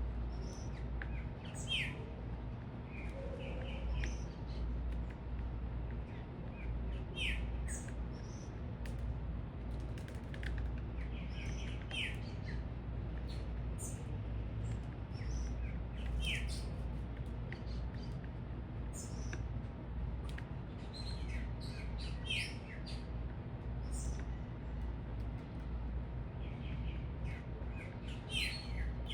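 Small birds chirping: many short, high calls scattered throughout, over a steady low rumble.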